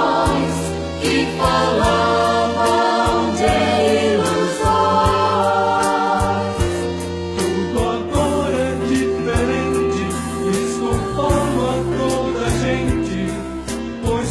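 Portuguese-language gospel song: voices singing together in sustained lines over a band with bass and a steady drum beat.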